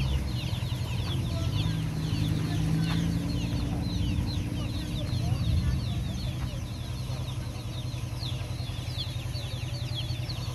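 Chickens peeping: a dense, unbroken stream of short, high, falling peeps, with a low rumble underneath.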